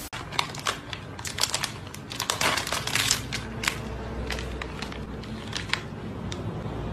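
Plastic snack wrapper crinkling and crackling as it is opened by hand, with many sharp crackles in the first four seconds that thin out after that.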